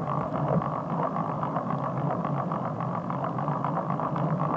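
Steady rushing, rumbling noise of a bicycle ride in heavy rain, wind, rain and wet-road noise on a bike-mounted camera, played back sped up so that it runs together into an engine-like drone.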